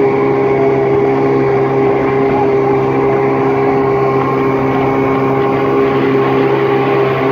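Boat's outboard motor running at a steady pitch.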